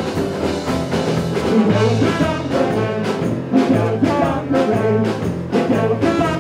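Live band playing an up-tempo, brass-heavy tune: trombone, accordion, electric guitar and drum kit together over a steady beat.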